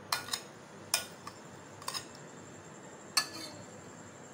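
A metal spoon clinking against dishes about six times at uneven intervals while cream is scraped out into a bowl of mayonnaise.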